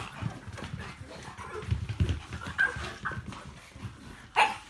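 Small dogs, a pug among them, play-fighting: irregular scuffling with short yips, the loudest a sharp yip near the end.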